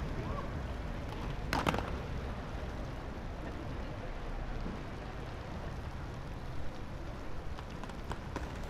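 Skate park ambience: skateboard wheels rolling on concrete with a steady low rumble, one sharp board clack about a second and a half in, and a few lighter clicks near the end.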